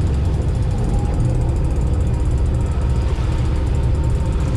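A large fishing boat's engine running steadily under way, a constant low drone with a hiss of wind and water over it.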